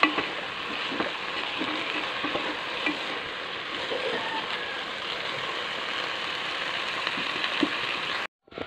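Fiddlehead ferns and mustard greens sizzling in a pot as a spatula stirs them, with a few light knocks of the spatula against the pot. The steady sizzle cuts off suddenly just before the end.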